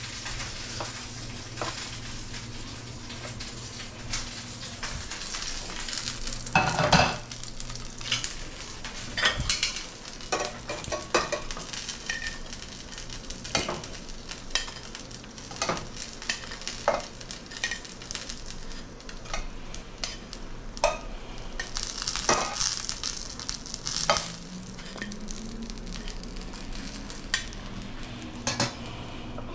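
Pan-fried dumplings sizzling in a frying pan, with many short clicks and scrapes of metal tongs and a spoon against the pans and a plate as the dumplings are lifted out.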